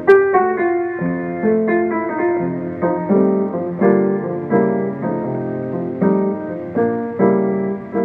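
Solo piano playing a steady run of struck notes and chords, heard through a 1938 disc recording whose thin, muffled top end cuts off the high frequencies.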